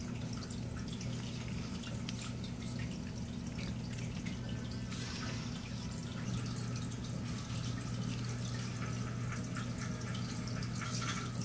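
Aquarium filter running: water trickling and dripping with small splashes and ticks over a steady low hum.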